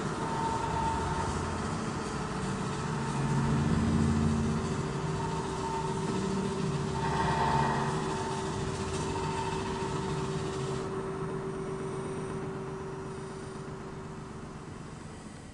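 Low engine-like rumble with a steady hum, swelling twice and fading away near the end.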